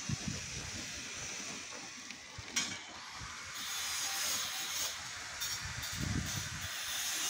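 Water spraying from a hose in a high arc, a steady hiss.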